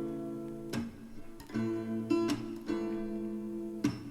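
Background music: a strummed acoustic guitar playing chords in an instrumental gap of a pop song, with no singing.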